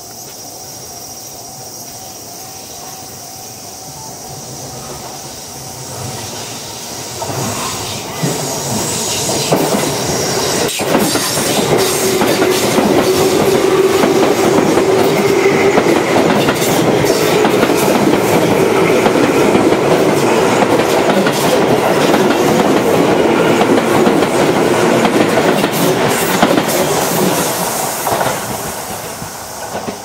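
Tobu 9000 series electric commuter train passing close by: its running noise and wheel-on-rail clatter build up over several seconds, stay loud for about fifteen seconds as the cars go past, then fade as it leaves.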